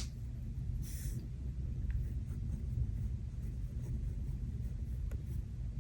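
Light paper handling on a planner: a brief papery rustle about a second in and a few faint taps, over a steady low rumble of thunderstorm ambience.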